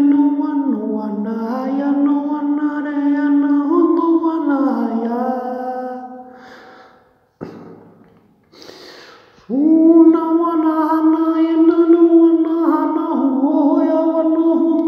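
A man singing long, sustained wordless vocal tones that step and slide from one pitch to the next. The tone fades out about six seconds in, and after a short pause the singing starts again about nine and a half seconds in.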